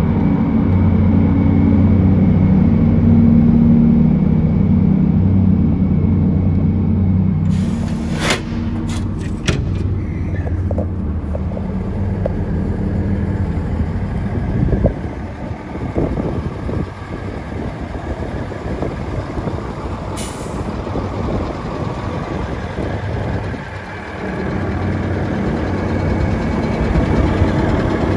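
Mack diesel engine of a 1973 Mack T-600 truck idling steadily, with a short sharp burst of air hiss about eight seconds in and a few clicks after it. The engine sound fades back for a while in the middle and comes up strongly again near the end.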